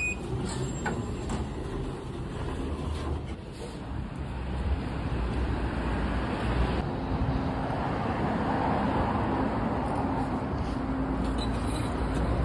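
Street ambience of road traffic running past, a steady noisy rumble. A short electronic beep sounds right at the start as a card is tapped on an entry-gate reader.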